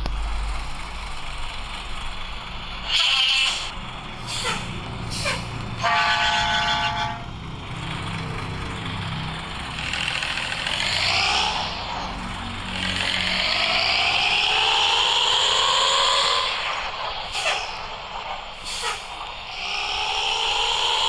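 Nissan CB bus's diesel engine with a snoring exhaust note, the kind typical of East Java buses. The engine rumbles, then revs up twice in long rising sweeps as the bus pulls away and changes gear. Short air hisses come early and late, and a horn blast of about a second sounds around six seconds in.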